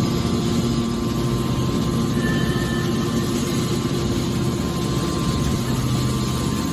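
Hydraulic baler machine running: a steady mechanical drone with a constant low hum.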